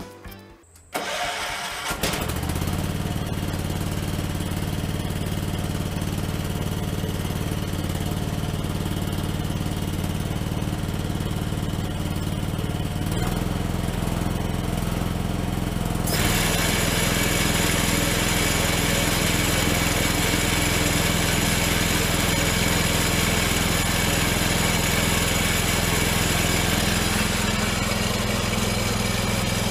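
John Deere 214 garden tractor's single-cylinder engine running steadily. It comes in about a second in, and about sixteen seconds in it grows louder and brighter.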